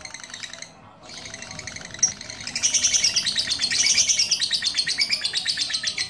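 Lovebird chattering in a long run of rapid, evenly spaced high chirps, the drawn-out 'duration' chatter lovebird keepers prize. It dips briefly just under a second in, then grows louder and denser from about two and a half seconds on.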